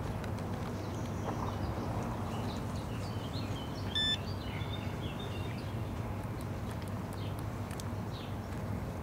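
Handheld card payment terminal giving one short electronic beep about four seconds in, during a card payment, over a steady low background hum.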